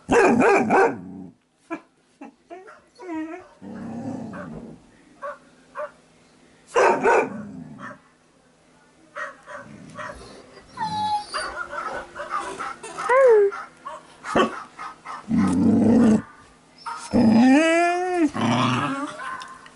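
A dog-barking sound effect and dogs: bursts of barking, with several drawn-out cries that rise and fall in pitch, the longest near the end.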